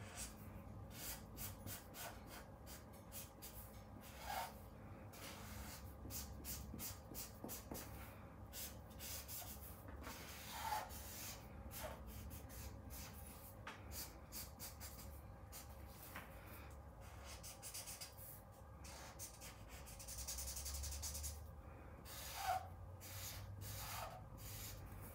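Marker tip rubbing and scratching across paper in repeated short colouring strokes, several a second, as an area is filled in with ink.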